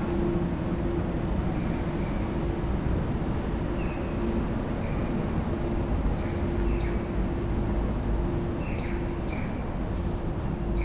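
Steady low rumble of city background noise, with a steady hum that comes and goes and a few short high chirps scattered through it.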